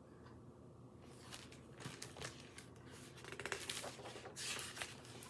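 Paper pages of a picture book rustling and crackling as the book is handled and a page is turned, with a run of small clicks partway through.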